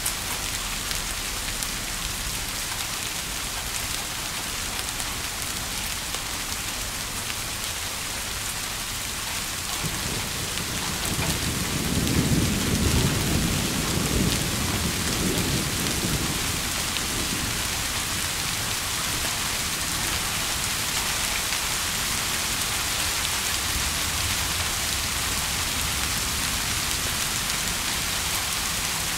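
Steady rain ambience with a low roll of thunder that swells about ten seconds in, rumbles for several seconds and fades away.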